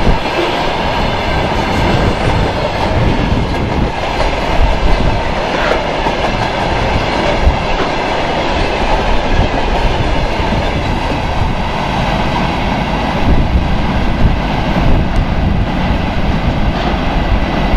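Freight train of railway tank cars rolling past close by, the wheels clattering over the rail joints in a steady, loud rumble.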